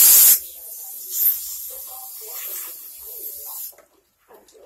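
A loud hissing spray blast from a handheld sprayer aimed at the shaved side of the head; it cuts off just after the start, and a fainter steady hiss carries on until it stops near the end.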